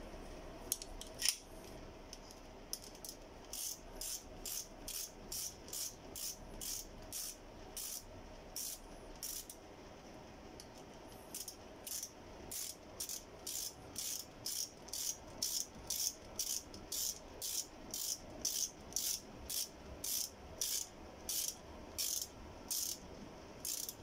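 Ratchet wrench clicking in an even rhythm, about three clicks a second, in two long runs with a short pause near the middle, as connecting rod cap bolts are run down on a Toyota 1NZ-FE engine ahead of torquing.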